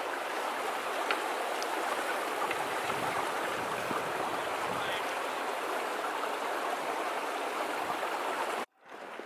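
Steady rushing of running water, like a stream or rapids, with a few faint clicks over it; it cuts off suddenly near the end.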